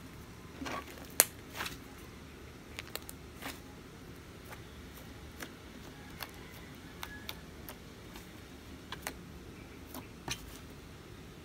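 Soft clay-mixed slime being stretched, squeezed and poked by hand, giving irregular sharp clicks and small pops, the sharpest about a second in.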